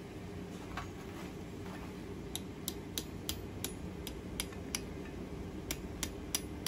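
Hammer blows on a red-hot bar of garage-door spring steel held in tongs on the anvil, shaping the loop handle of an awl: quick, evenly spaced strikes at about three a second, starting about two seconds in.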